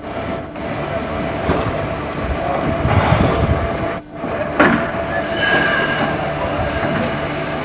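Steam locomotive standing with steam hissing steadily, and voices mixed in.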